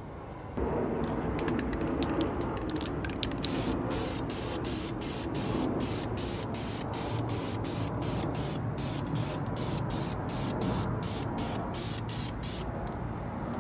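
Aerosol spray paint can spraying with a steady hiss that starts about half a second in. The top of the hiss flickers three or four times a second.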